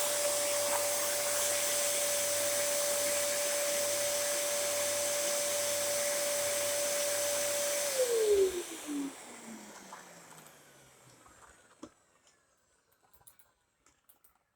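Dyson upright vacuum cleaners running with a steady motor whine, then switched off about eight seconds in, the whine falling in pitch as the motors spin down. A few faint clicks follow.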